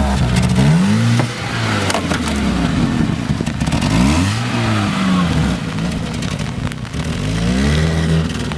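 Off-road 4x4 car engine revving up and down repeatedly as the throttle is worked on and off, with some clatter.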